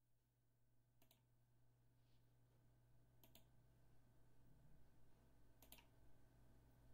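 Near silence: a faint steady hum with three faint double clicks, about two seconds apart.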